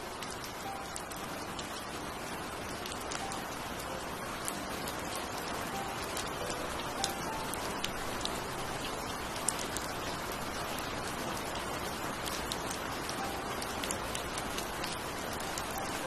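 Heavy rain pouring steadily, with scattered sharp taps of individual drops.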